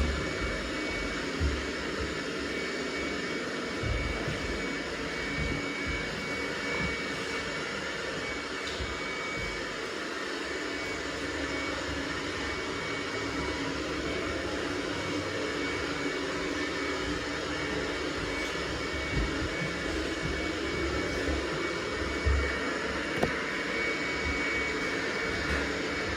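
Robot vacuum cleaner running with a steady whir and a thin, constant high tone, with occasional low bumps.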